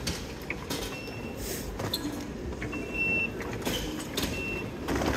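Railway ticket barriers with contactless card readers: short high beeps about a second in, three seconds in (the loudest) and four seconds in, the beep that signals a credit card tap accepted, with the gate paddles opening and the hubbub and knocks of a busy station concourse around them.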